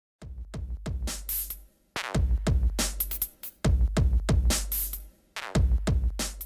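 Electronic intro music: a drum-machine beat over deep bass, in short phrases broken by brief gaps.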